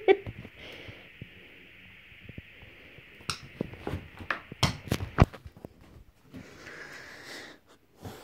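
A dog playing with a squeaky toy ball on a bed. The ball gives a last short squeak at the very start. A few sharp knocks and thumps follow, about three to five seconds in, as the dog shifts about and the ball rolls away.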